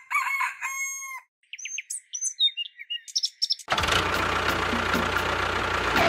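A rooster crowing once, followed by small birds chirping. About two-thirds of the way in, a steady loud noise with a low hum starts and holds.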